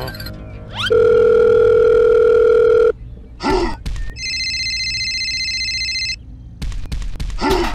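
A string of added cartoon sound effects: a loud, steady electronic tone like a telephone dial tone for about two seconds, a short grunt, then a high steady beep for about two seconds. Near the end, after the toy tractor's button is pressed, a low rattling engine rumble starts with rapid clicking.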